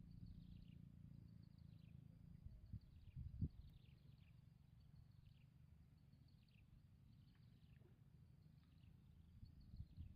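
Faint outdoor ambience: a repeated high chirp that sweeps downward, about one a second, over a low rumble, with a soft knock about three and a half seconds in.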